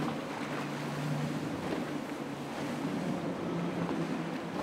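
Motorboat engine droning steadily under the rush of water and wind noise, its pitch rising a little partway through.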